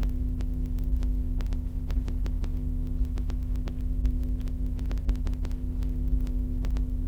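Steady electrical mains hum with a stack of low overtones, picked up by the recording setup, with frequent faint irregular clicks over it.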